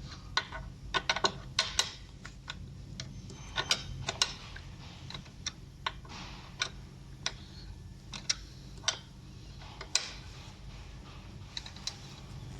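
Scattered, irregular sharp clicks and light metal taps from a hand tool tightening the chainring's fastener on an electric bike crank.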